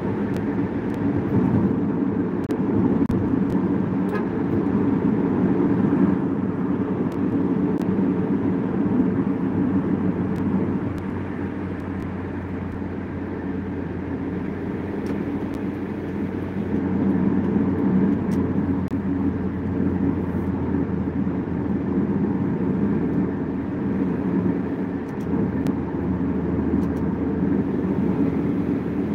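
Steady road and engine noise heard inside a moving car's cabin at highway speed, a continuous low rumble of tyres on the road, easing slightly about halfway through.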